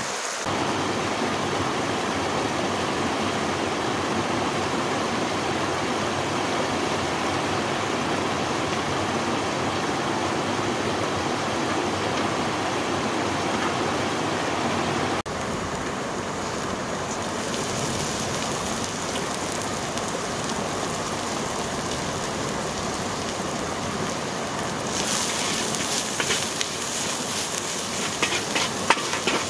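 A mountain stream running with a steady rushing noise. Near the end, chopped herbs sizzle in a wide black pan while a wooden spatula scrapes and knocks against it in quick strokes.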